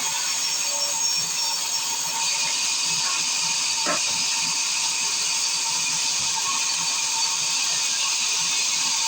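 Circular sawmill running with a steady high hiss and a whine, with a single click about four seconds in.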